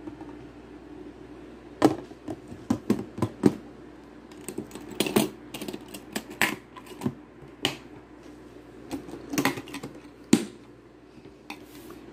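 Stainless steel serving-dish lid and its clips clinking and knocking against the dish as the lid is handled and set in place: an irregular string of sharp metallic clicks and taps, the last loud knock about ten seconds in, over a steady low hum.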